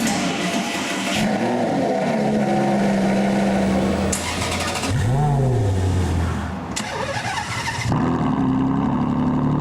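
Supercar engine revving: several quick blips that rise and fall in pitch, with steadier held revs between them and a few sudden breaks.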